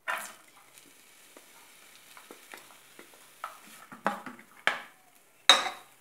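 Chopped onion tipped into hot olive oil in a non-stick frying pan, with a loud sizzle as it lands, then a faint steady sizzle. A wooden spatula stirs the onion, knocking against the pan three times near the end.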